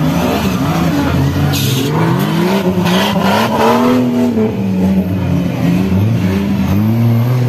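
Off-road buggy engines revving hard through deep mud, the pitch repeatedly rising and falling as the throttle is worked.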